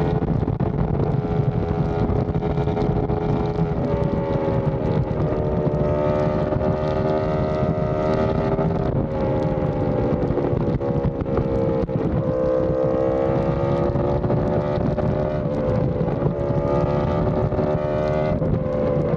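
Yamaha R1M's crossplane inline-four running through an SC Project exhaust at a steady highway cruise, its pitch wavering with small throttle changes and dipping briefly twice, under heavy wind noise on the microphone.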